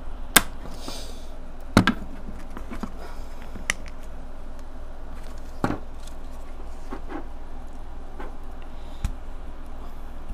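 Hard 3D-printed plastic parts and steel LM10UU linear bearings being handled and pushed together on a wooden desk: a few sharp clicks and knocks, the loudest two in the first couple of seconds, with light scuffing between them. A low steady hum runs underneath.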